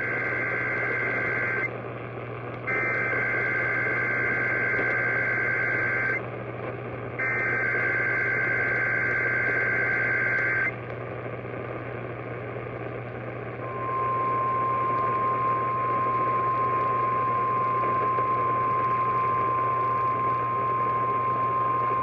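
Three bursts of Emergency Alert System SAME header data tones, each about three and a half seconds long with a second between, over radio hiss and a low hum. Then, after a short pause, the steady single-pitch NOAA Weather Radio warning alarm tone (1050 Hz) sounds for about eight seconds.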